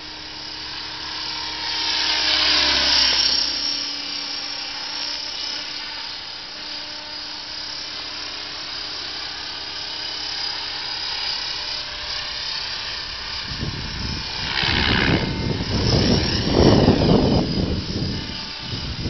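Blade 550X electric RC helicopter flying aerobatics: a steady rotor and motor whine that swells louder about two seconds in and again around fifteen seconds in, its pitch sliding down as it passes. A rough low rumble sits under it over the last few seconds.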